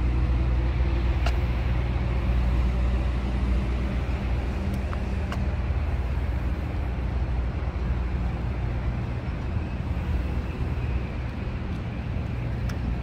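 Road traffic: a steady low engine rumble with the wash of passing vehicles, and a few light clicks.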